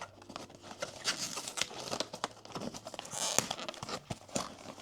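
Crinkly blind-box packaging being pulled at and torn while it resists opening, a run of irregular rustles and small snaps.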